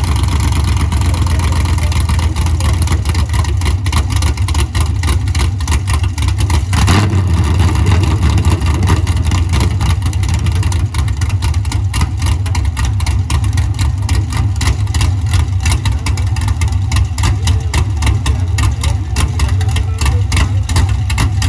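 LS2 6.0-litre V8 engine running on an engine stand, just started and idling loudly with a choppy beat.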